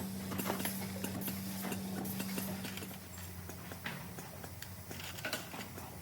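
Assembly-line workstation sounds: a steady machine hum with irregular light clicks and taps of small parts being handled and fitted. The hum drops about three seconds in.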